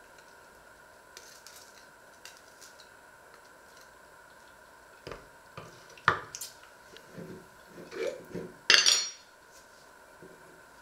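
Kitchen handling sounds: faint scraping of a knife spreading on bread, then knocks as the knife is laid on the wooden board and a glass jam jar is picked up, opened and set down on the wooden counter, with clinks of its lid. The loudest is a ringing clatter about nine seconds in.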